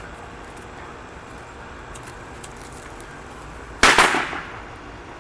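A single firecracker going off: one sharp, loud bang about four seconds in that dies away within half a second.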